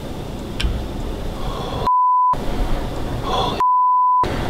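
Two censor bleeps, a pure steady tone with the rest of the sound cut out beneath it, each covering a word of low speech: the first about two seconds in and under half a second long, the second slightly longer near the end.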